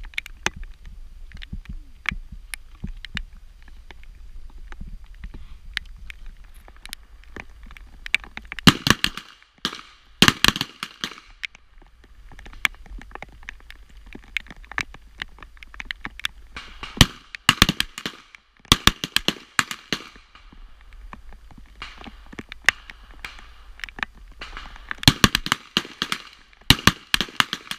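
Revolver shots fired in quick pairs and groups, each a sharp crack, with fainter shots between them throughout.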